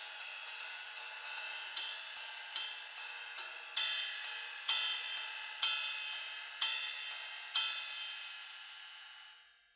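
Bosphorus Gold series cymbal struck with a stick in a steady pattern, at first lightly about twice a second, then with heavier strokes about once a second. Each stroke leaves a long bright ring. After the last stroke the ring dies away and fades out near the end.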